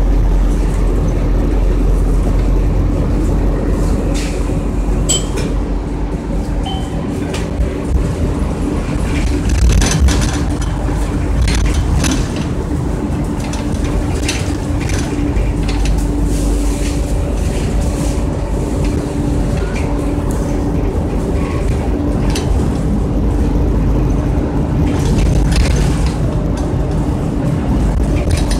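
Cabin sound of a 2002 Orion VII CNG transit bus under way: a steady low engine and road rumble with a constant drone, and scattered rattles and clicks from the interior.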